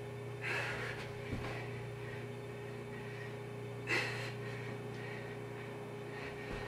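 A woman breathing hard during burpees: two sharp exhalations about three and a half seconds apart, with dull thuds of hands and feet landing on a carpeted floor, over a steady low hum.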